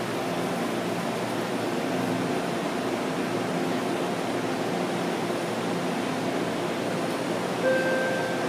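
BART train standing at an underground platform with its doors open: a steady hum and hiss from the train and station ventilation. Near the end a short steady tone sounds, the warning that the doors are about to close.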